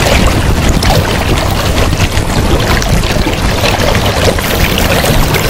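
Shallow river water rushing and rippling over a riffle, with wind buffeting the microphone.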